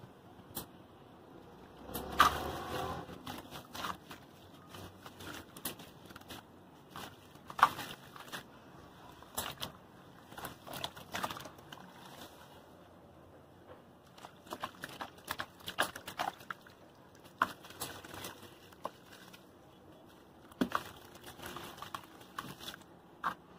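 Hands crumbling and squeezing wet cement and sand in a plastic basin of water, giving irregular splashes, squelches and small crackles. There is a busier burst of splashing about two seconds in.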